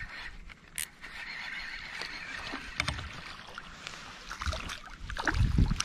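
A baitcasting reel cranked to bring a hooked fish in to a kayak, with a sharp click about a second in. Water splashing and knocking start near the end as the fish nears the boat.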